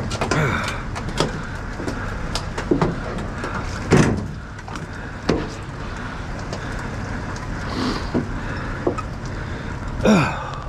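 Scattered metal and wood knocks and clunks from handling a pickup truck's tailgate and wooden stake rails, the loudest about four seconds in and another near the end, over a steady low background rumble.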